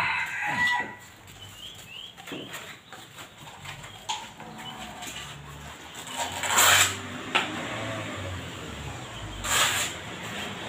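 Metal scrapers scraping and tapping on cement flower pots, with two louder scrapes, each about half a second long, around six and a half and nine and a half seconds in.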